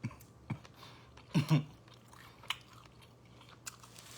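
A man eating seafood boil close to the microphone: scattered chewing clicks and crunches, with one louder short mouth sound about a second and a half in.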